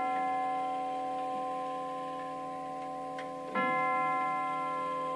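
Herschede Model 250 grandfather clock's chime tubes tolling the hour with slow single strokes: one stroke rings on from just before, and the next comes about three and a half seconds in. Each stroke leaves several long ringing tones that fade slowly.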